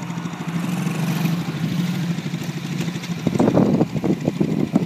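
Small off-road vehicle engine running steadily. It turns louder and rougher for about a second past the three-second mark.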